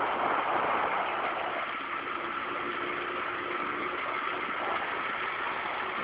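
Steady rush of wind and road noise while travelling fast downhill, easing slightly after about two seconds.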